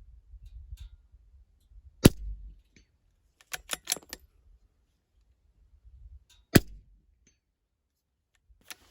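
Two shots from a Ruger Precision Rimfire .22 LR rifle, about four and a half seconds apart. Between them comes a quick run of clicks as the bolt is worked to chamber the next round, and more clicks follow near the end.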